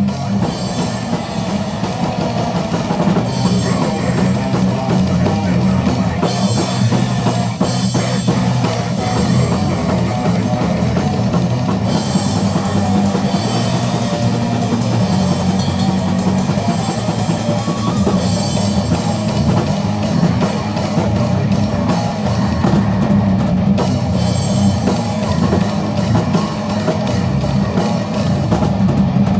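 Loud heavy rock music driven by a fast drum kit with bass drum.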